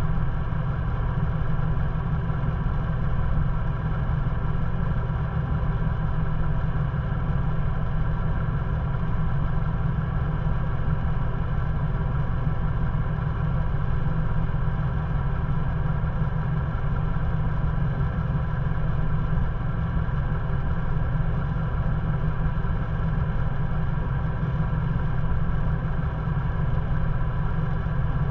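Ford Bronco engine idling steadily, a deep even rumble with no revving.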